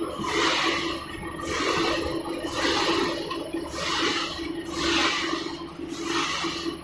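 Snack production line machinery running: a steady hum under a swishing noise that swells and fades about once a second, as core-filled pillow snacks move over the perforated steel conveyor.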